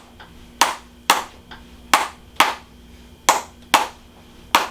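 Hammer-type chiropractic adjusting tool tapping the patient's back: sharp taps in pairs about half a second apart, each pair coming about every second and a half.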